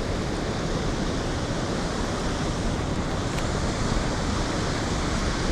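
Steady, even rush of a large waterfall pouring into its splash pool.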